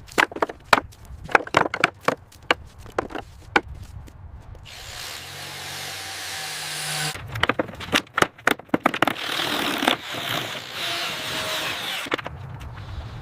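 Tool work on wood: a quick run of sharp knocks, then a few seconds of steady noisy running with a low hum about five seconds in. More knocks come near the middle, followed by steady noise again.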